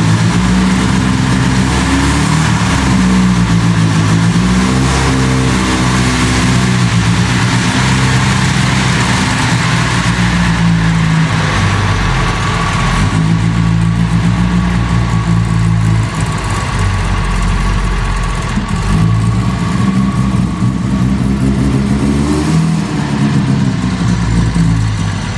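Saab 99 EMS rally car's four-cylinder engine running as the car drives out of the garage and across the yard, its revs rising and falling a few times.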